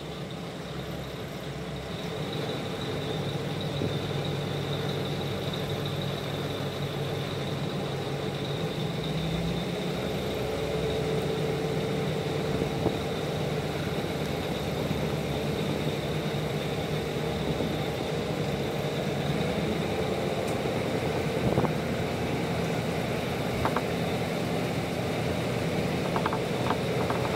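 KiHa 205 diesel railcar's engine running under power as the railcar pulls away, its note rising and growing louder as it gathers speed. A few short clicks come near the end.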